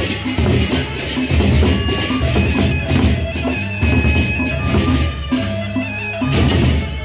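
Sasak gendang beleq ensemble playing: big double-headed barrel drums beaten with sticks and hands in a dense, driving rhythm, over bright metallic clashing and steady ringing tones from the ensemble's cymbals and gongs.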